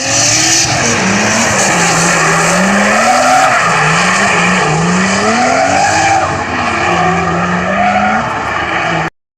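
A car engine revving up and down with tyres squealing over it, as in drifting or a burnout. It starts suddenly and cuts off abruptly near the end.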